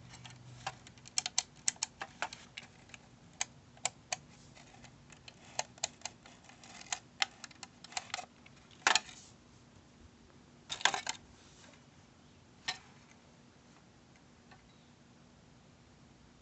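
Irregular light clicks and taps of small hard objects being handled, bunched in quick runs, with louder clacks about nine and eleven seconds in. The clicks stop after about thirteen seconds, leaving a faint steady hum.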